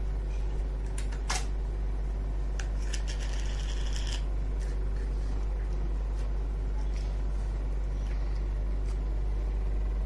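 A small plastic slime tub is handled and opened, with a few sharp plastic clicks about a second in and a crinkly rustle of plastic from about three to four seconds in. A steady low hum runs underneath.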